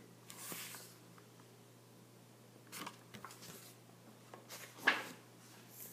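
Soft rustling and handling noises from a hardback picture book's paper pages as it is moved and its pages handled, a few brief rustles with one sharper one near the end, over a faint steady hum.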